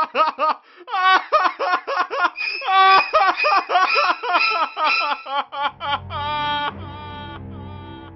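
A cartoon character's high-pitched laugh in rapid repeated bursts. About five and a half seconds in it slows into a few long drawn-out notes over a low rumble that fades away.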